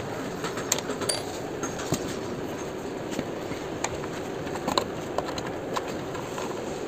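Scattered light clicks and taps of a hand tool and plastic motorcycle fairing panels being worked loose, irregularly spaced, over steady background noise.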